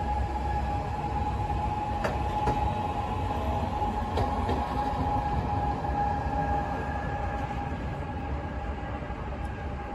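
PESA Elf electric multiple unit at the platform, giving off a steady electric whine with a fainter higher tone over a low rumble. There are a few sharp clicks about two and four seconds in, and the whine fades near the end.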